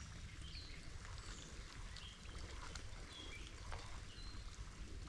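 Steady patter of rain and a low outdoor rumble, with faint short bird chirps and a few light clicks scattered through it.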